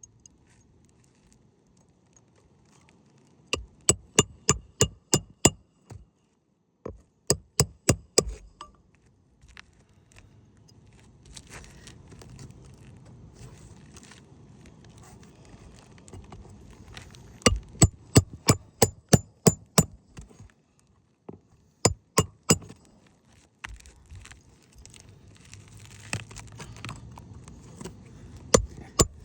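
Runs of quick, sharp metal-on-metal hammer strikes, about three to four a second, each ringing briefly, as tools are worked under asphalt roof shingles during a repair attempt. A rough scraping, rustling noise comes between the runs.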